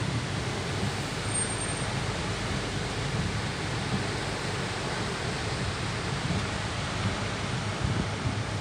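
Hurricane-force wind driving rain, a steady, even rush of noise with a fluttering low rumble underneath.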